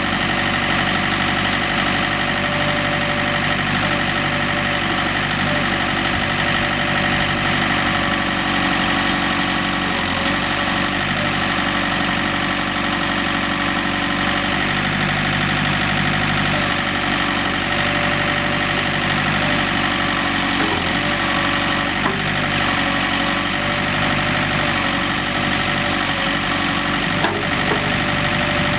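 Diesel engine of a John Deere 110 4x4 backhoe loader idling steadily, with a few faint clicks now and then.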